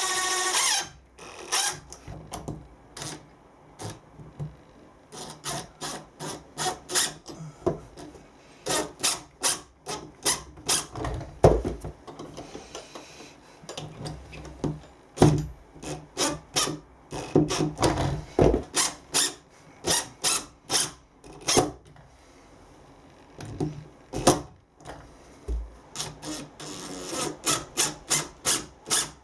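A power drill or driver whines and stops about a second in, followed by a long irregular series of short sharp knocks, clicks and scrapes of hand tools working on wood, with a few heavier thuds and, near the end, a quick even run of about three strikes a second.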